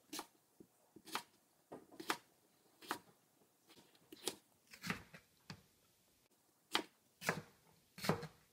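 Wide-bladed kitchen knife cutting through a raw potato and striking a plastic cutting board: a dozen or so separate chops at an unhurried, uneven pace, some in quick pairs, as the potato is diced.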